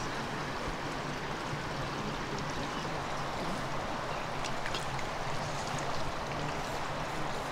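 Flowing river water, a steady even rush.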